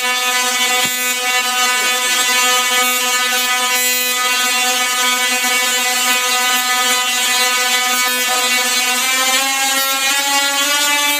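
A 10 kVA double-resonant solid-state Tesla coil (DRSSTC) firing, its spark discharges making a loud, steady, rasping buzz whose pitch is set by the interrupter's pulse rate. The pitch rises a little about nine seconds in.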